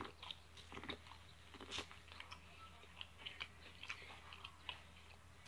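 Faint biting and chewing of corn on the cob: a string of small, irregular crunchy clicks as kernels are bitten off the cob and chewed, the loudest a little under two seconds in.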